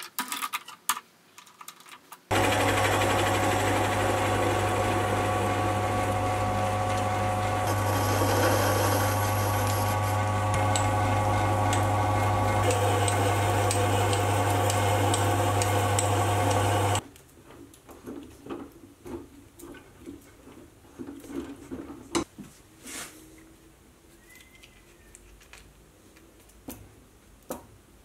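Mini lathe's motor running steadily with a low hum while a twist drill bores into a cold drawn steel pin held in the chuck. It starts suddenly about two seconds in and stops suddenly after about fifteen seconds. Then come light clicks and taps of small steel parts being handled.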